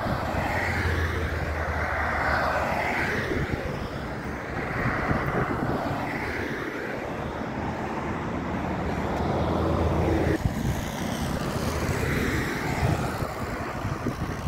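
Cars passing close by on a highway, each swelling and fading every couple of seconds, over a steady low rumble that may come from the distant airliner's jet engines.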